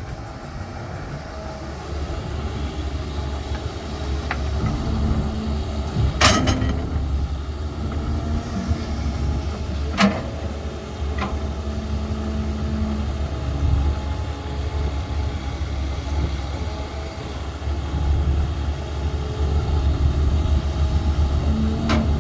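Heavy construction machine's engine running with a steady low rumble, broken by a few sharp clanks, the loudest about six seconds in and another near the end.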